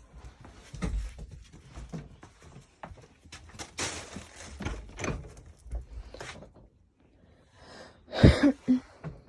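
Scattered clicks, knocks and rustling of someone moving about in a small room, with a louder thump about eight seconds in.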